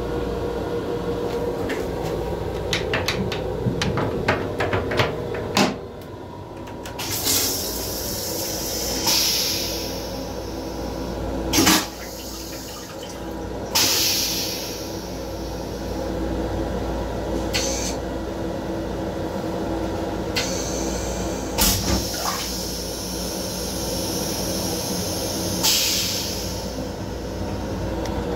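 Metro-North M7 railcar toilet flushing: repeated hissing rushes of water every few seconds, some starting with a sharp clunk, after a run of light clicks, over the steady rumble of the train.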